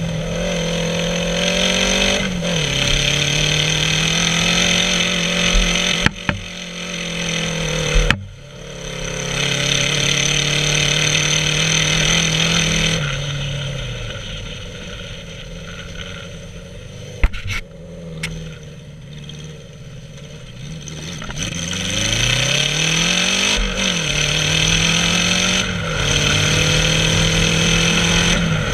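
550cc dune buggy engine running while driving, its pitch rising and falling with the throttle. It goes quieter for several seconds in the middle, then revs up again. A few sharp knocks sound along the way.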